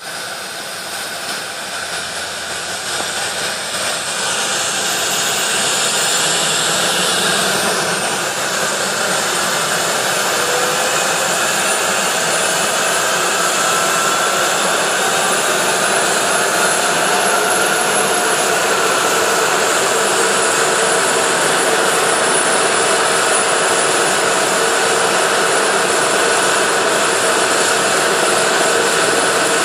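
MD 902 Explorer helicopter running on the ground with its rotor turning. The turbine whine and rotor noise grow louder over the first several seconds and then hold steady, and a high whine rises slightly in pitch before levelling off.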